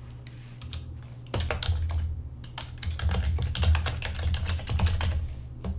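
Typing on a computer keyboard: a fast, uneven run of keystrokes starting about a second in.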